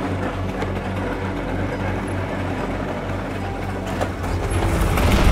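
Vintage Vespa-style scooter engine running as it rides closer, getting louder near the end.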